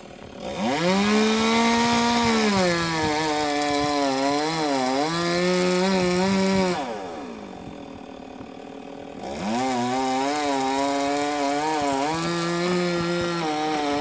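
Chainsaw throttled up to full speed twice, each burst several seconds long, dropping back to idle in between and again near the end. During the first burst the pitch dips and wavers under load, as the chain cuts into wood.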